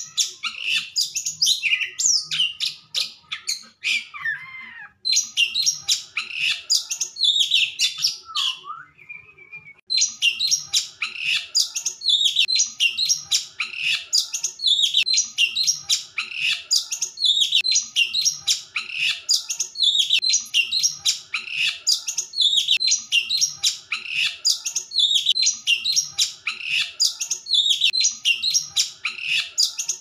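Oriental magpie-robin singing loudly in dense, quick high-pitched phrases, with a short break about nine seconds in, then a long run of similar phrases coming about once a second.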